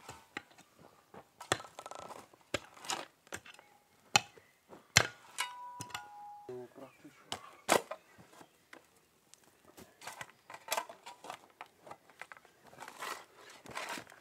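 A mattock and a shovel digging into the ground: irregular sharp strikes of the blades into the earth, mixed with short scrapes of the shovel through the soil.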